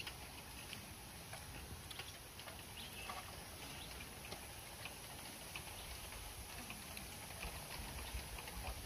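Faint, scattered clicks and taps from people handling food, utensils and wooden trays while they eat, over a steady low rumble.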